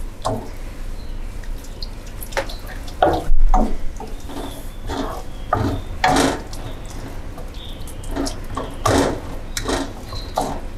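Wooden spatula stirring and scraping a thick, wet white-sauce mixture with meat and cheese in a granite-coated pan, in irregular sticky strokes. One stroke about three seconds in is louder than the rest.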